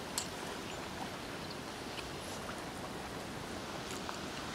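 Steady wash of sea surf and wind, with a few faint clicks and ticks over it.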